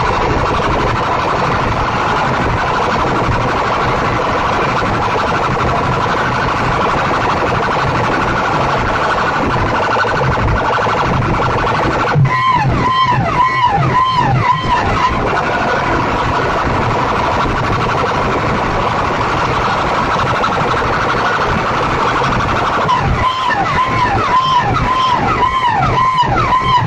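Very loud sound from stacked horn loudspeakers of DJ sound-box systems: a dense, steady electronic tone. About twelve seconds in it switches to a siren-like warble, rising and falling about three times a second, for a few seconds. The warble returns near the end.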